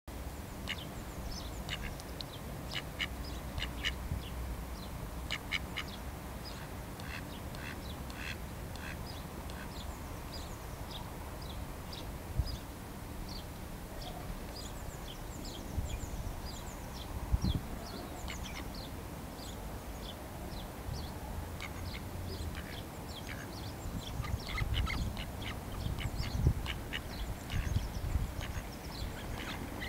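Mallard ducks calling: many short calls in quick runs throughout, with a few low thumps in between.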